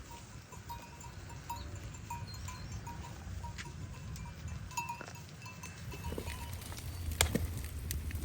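Small bells on livestock clinking irregularly, short bright tones several times a second, over a low steady rumble, with a sharp knock about seven seconds in.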